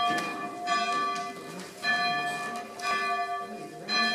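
Church bell being rung, with about five strokes roughly a second apart, each stroke ringing on into the next.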